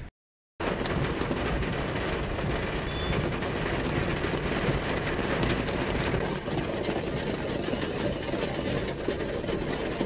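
Steady rush of heavy rain and city traffic heard from inside a moving car, with rain on the windscreen and windows. It starts suddenly after a short silent break.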